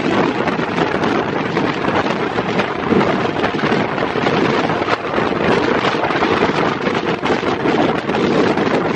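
Wind buffeting the microphone of a camera held out of a fast-moving train's window, mixed with the steady rush of the train running at speed. The noise is loud and continuous, with no letting up.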